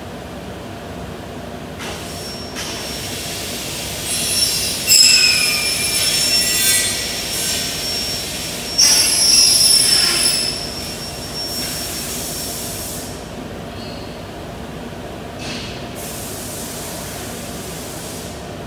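Glass cutter scoring glass: high-pitched screeching strokes, the loudest about four to seven and nine to ten seconds in, with fainter, shorter ones later.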